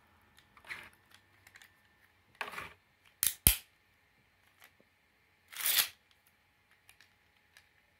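Plastic clicks and short rasps as a Beyblade is fitted onto its string launcher. A sharp double click about three and a half seconds in is the loudest sound.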